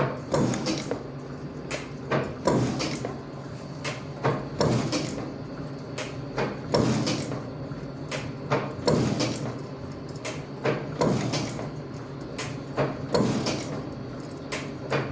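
7А311 metal shaper running and cutting the teeth of a ratchet wheel. Its ram strokes back and forth with a clunk about every two seconds and lighter ticks between, over a steady motor hum.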